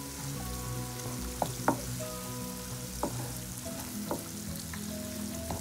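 Sliced onions and green chillies sizzling in hot oil in a wok, stirred with a wooden spoon that scrapes and knocks against the pan several times.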